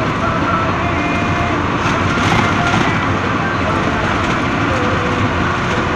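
Steady engine, tyre and wind noise inside the cabin of a moving road vehicle, even and unbroken.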